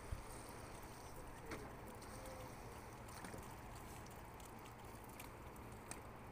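Faint steady rumble of wind and flowing river water, with a few light clicks, the sharpest right at the start.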